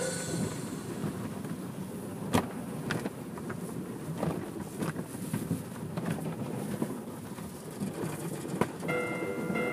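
Automatic car wash cloth strips and brushes scrubbing and slapping over the windshield and car body, with water spray, heard from inside the car's cabin. Two sharp knocks stand out, one about two and a half seconds in and one near the end.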